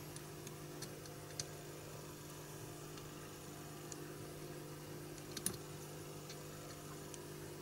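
A few faint small clicks and taps of bare wire leads from a coin-cell battery being touched to the pads of a surface-mount RGB LED on a circuit board, the most marked about a second and a half in and again near five and a half seconds, over a steady low hum.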